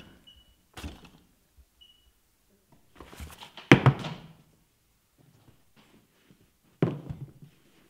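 Lace-up leather boots knocking on wooden floorboards: a few separate thuds, the loudest about halfway through.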